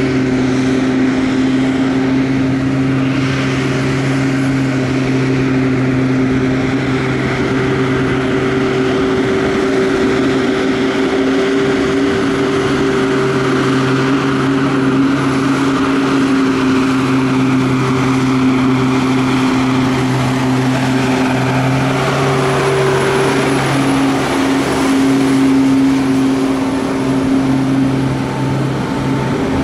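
Cat 3126B six-cylinder diesel of a 2006 RoGator 1080 self-propelled sprayer running at a steady speed as the machine drives, a steady engine note that shifts slightly about three-quarters of the way through.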